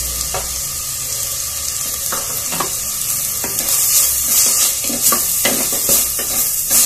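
Chopped onions sizzling in hot oil in a clay pot, stirred with a wooden spatula that scrapes and knocks against the pot's sides many times. The sizzle gets a little louder about halfway through.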